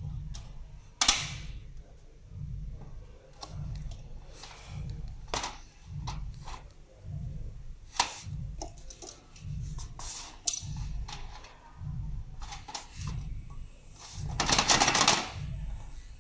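Sharp plastic clicks and handling noise as clear plastic blades are fitted to a ceiling fan. There is a loud click about a second in and more around the middle, a longer rustling scrape near the end, and soft low thumps repeating about every two-thirds of a second underneath.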